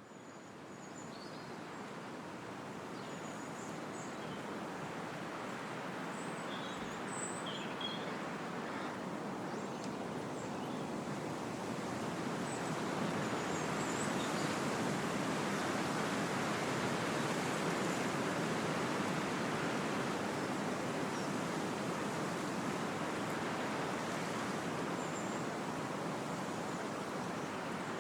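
Wind blowing through trees, a steady rushing that fades in at the start and swells a little towards the middle. Faint, brief bird chirps come over it now and then, mostly in the first half.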